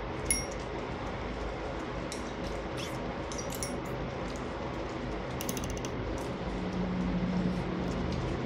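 Metal chopsticks and a spoon clicking and clinking against bowls and dishes while eating, with one ringing clink just after the start and a quick rattle of clicks later on. Underneath is a steady low hum, and a low drone grows louder near the end.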